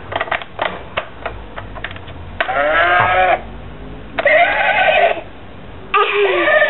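An electronic children's toy playing recorded animal sounds: a few clicks, then three sheep bleats of about a second each.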